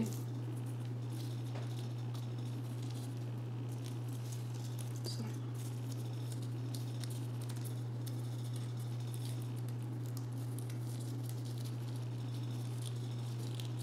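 Faint rustling and small clicks of cardstock petals being handled and pressed together by fingers, over a steady low hum.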